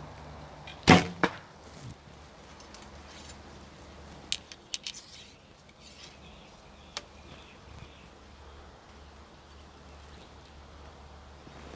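Recurve bow shot: the string is released with a sharp crack, followed about a third of a second later by a second, softer hit. A few light clicks come a few seconds later, and another single click near the end.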